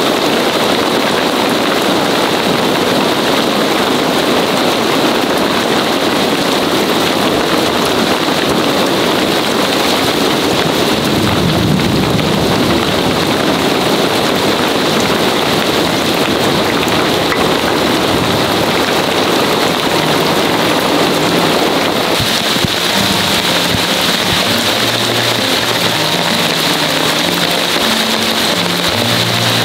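Heavy rain falling steadily, a loud continuous hiss. Low music notes come in about two-thirds of the way through.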